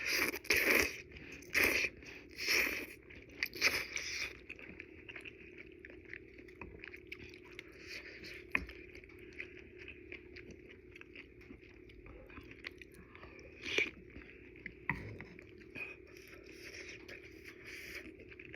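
Close-miked eating of udon noodles: four loud, short slurps about a second apart in the first few seconds, then soft chewing with small wet mouth clicks.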